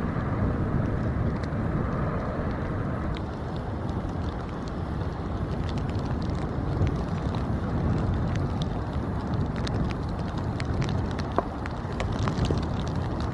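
Wind buffeting the microphone as a steady low rumble, with scattered faint ticks from about three seconds in.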